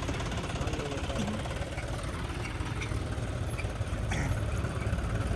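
Tractor's diesel engine idling steadily, just after being started.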